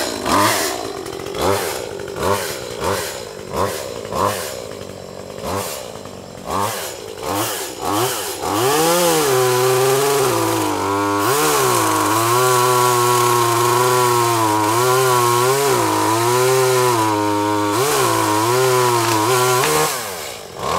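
Echo CS-2511T top-handle two-stroke chainsaw revved in a run of short throttle blips, then held at full throttle cutting through a fallen locust tree for about eleven seconds, the engine pitch dipping and recovering as the chain bites into the wood, before dropping back near the end.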